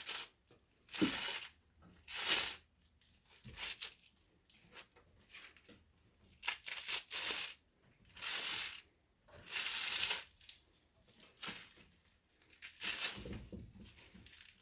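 Paper insulation being torn and peeled out of a ballast's copper windings: a series of short rips and crinkles at irregular intervals.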